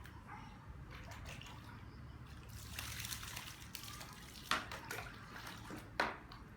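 Water splashing and trickling during a dog's bath, with a stronger rush of water partway through and two sharp knocks, the second near the end.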